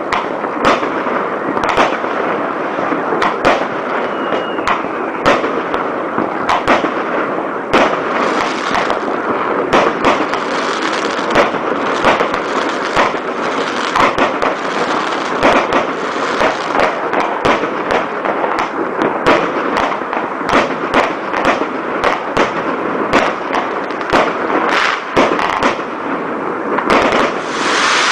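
New Year fireworks and firecrackers going off all around: a continuous crackle with frequent sharp bangs, several a second, and a louder hissing, crackling burst near the end.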